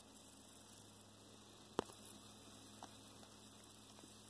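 Near silence with a faint steady electrical hum, broken by one sharp click a little under two seconds in and a fainter tick about a second later, as the tablet is handled.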